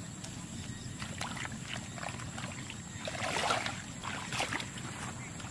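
Water splashing and sloshing around a small fishing boat, with short irregular splashes over a steady low rumble. The splashing swells into a louder stretch about three seconds in.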